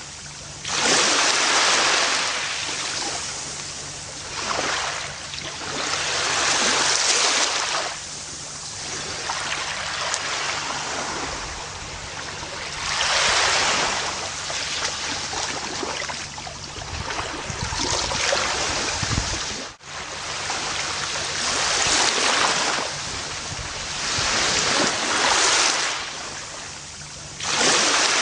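Gentle ocean waves washing onto a beach, each swell rising and falling every three to five seconds. There is a brief sudden dropout about two-thirds of the way through.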